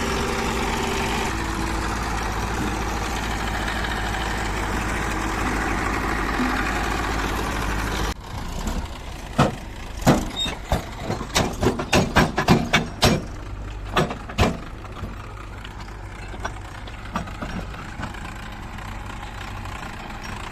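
Heavy diesel engine running steadily; about eight seconds in the sound cuts to a quieter engine hum, over which comes a quick run of sharp knocks and clanks for several seconds, then a few scattered ones.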